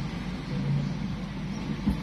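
Steady outdoor background noise, a low hum under an even hiss, with a brief low thump near the end.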